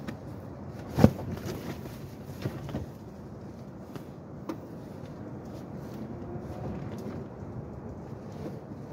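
One sharp knock about a second in, followed by a few fainter clicks, over a steady low rumble.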